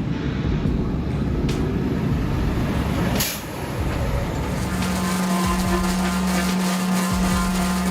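Heavy engine rumbling, cut off abruptly about three seconds in, followed by a steady machine hum at one pitch.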